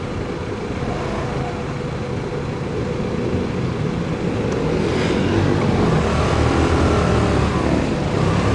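Motor scooter engine running while riding in dense city traffic, with cars and a bus close alongside. The rumble grows louder about halfway through.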